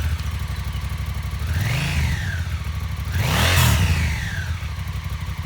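2018 Honda Africa Twin 1000's parallel-twin engine idling and revved twice: a short rev about two seconds in, then a higher, louder one about three and a half seconds in, each dropping back to idle.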